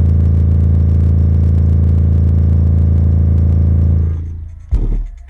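Car-audio subwoofer playing a loud, steady low bass note with a buzzing rattle riding on it. The note fades out about four seconds in, and loud bass hits of music start near the end.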